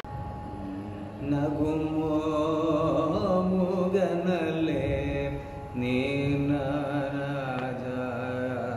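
A man singing unaccompanied in Carnatic style, holding long notes with slow gliding ornaments, in two long phrases with a short break about five and a half seconds in.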